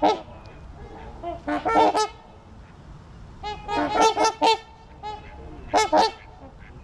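Large waterfowl honking: several bursts of short, loud, trumpet-like honks, some overlapping, from more than one bird.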